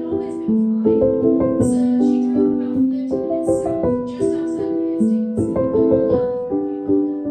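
Background music: a light piano tune of plucked-sounding notes over a steady beat.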